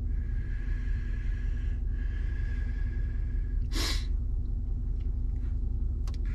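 Steady low rumble of a vehicle idling, heard inside the cab, with a faint steady tone over it for the first three and a half seconds. About four seconds in comes one short, sharp breath.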